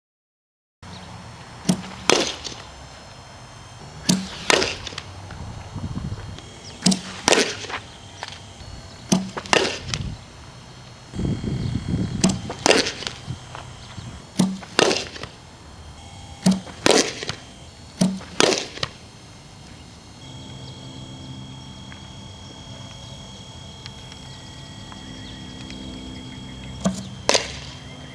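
Softball practice impacts: sharp cracks of a ball being struck or caught, most followed a fraction of a second later by a second knock, repeating about every two seconds. After a change in the background hum about 20 seconds in, there is one more such pair near the end.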